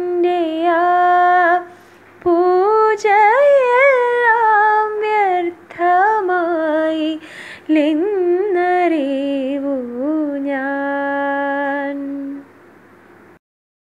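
A woman singing a Malayalam song unaccompanied, close on an earphone microphone, in phrases with ornamented, wavering pitch and short breaths between them. She ends on a long held note about twelve seconds in, and the recording cuts off to silence soon after.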